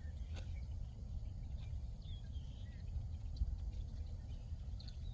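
Outdoor ambience: a steady low rumble with a few faint, short bird chirps scattered through it and a couple of light clicks.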